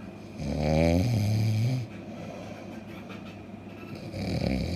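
Snoring: two long, low, droning snores, the first about half a second in and the second near the end, each lasting well over a second.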